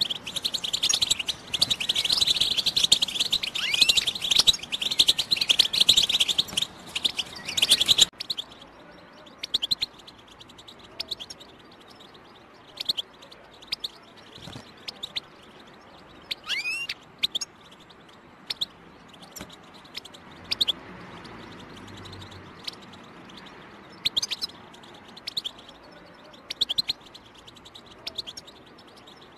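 European goldfinch song: a dense run of fast, rapid twittering for about the first eight seconds, then scattered short chirps and calls, with two falling notes about halfway through.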